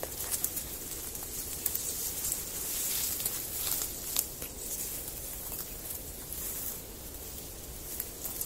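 Tall grass and weeds rustling and crackling as someone pushes through them on foot, with short snaps of stems among an uneven hiss of leaves.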